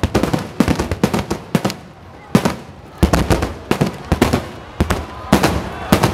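Aerial firework shells bursting in quick, irregular succession: loud, sharp bangs, often several within a second, with short lulls between clusters.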